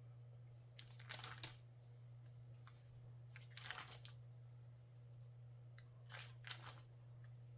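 Faint rustling and crinkling in three short bursts as seasoned keto bagels are lifted and set down on a baking pan, over a steady low hum.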